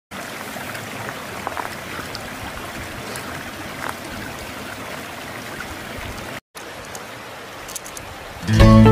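Beef steak sizzling on a fire-heated river stone: a steady hiss with small scattered pops. After a short break the hiss goes on more quietly, and plucked-string music starts near the end.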